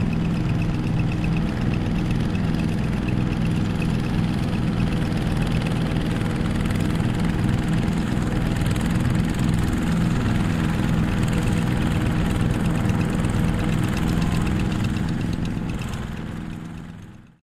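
Single-cylinder diesel engine of a two-wheel hand tractor running steadily, fading out over the last couple of seconds.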